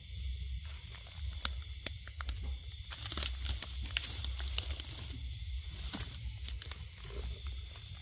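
Dry plant material being crinkled and torn, with scattered sharp crackles and a dense cluster of them about three seconds in.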